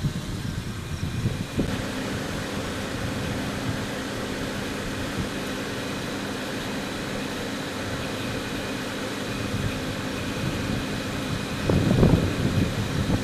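Steady hum of a vehicle's engine and ventilation fan, with several steady tones setting in about two seconds in. Near the end a loud, irregular low rumbling joins it.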